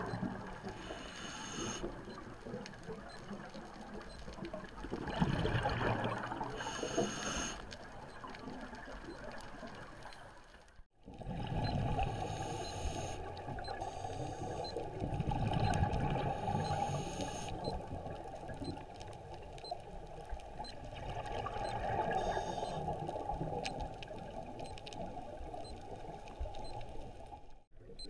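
Underwater recording of scuba divers breathing on regulators: a noisy surge of exhaled bubbles every few seconds over a steady water hiss. The sound cuts out abruptly about eleven seconds in and again just before the end, and is duller after the first break.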